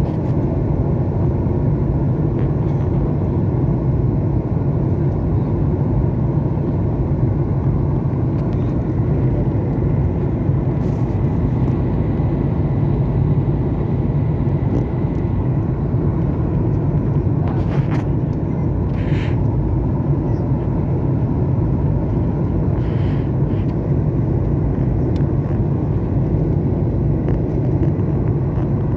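Steady cabin noise of a jet airliner in flight: the turbofan engines and rushing air make an even, low drone that holds without change, with a few faint brief sounds in the middle.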